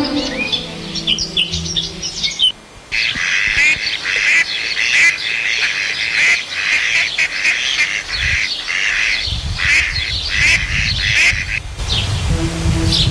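Domestic ducks quacking, a long run of short harsh calls about two a second, starting suddenly about three seconds in. Before that, small birds chirp for a couple of seconds.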